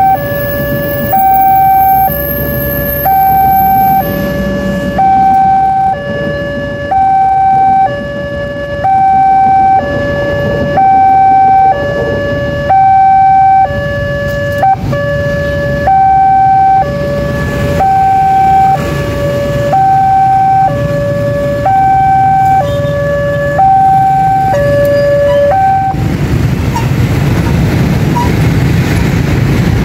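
Railway level-crossing warning siren sounding its two-tone alarm, a higher and a lower tone alternating about once a second, then cutting off suddenly near the end. Once it stops, only a low rumbling noise is left.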